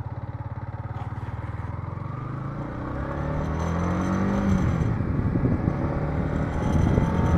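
Yamaha MT-15's single-cylinder engine pulling away from idle and accelerating, its pitch rising through first gear, dropping at the shift to second about five seconds in, then climbing again as the bike speeds up.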